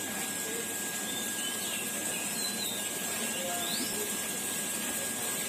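Aquarium filter running: a steady hiss of moving water and air with a faint constant whine.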